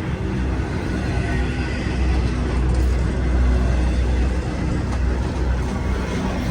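CSX intermodal freight train cars rolling past, a steady low rumble and rattle that swells from about two to four and a half seconds in.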